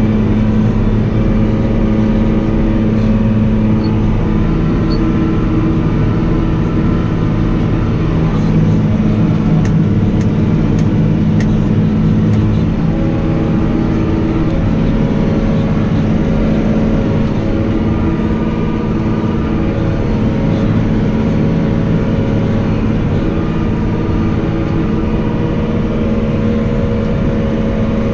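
Farm tractor engine running steadily, its pitch shifting slightly about halfway through.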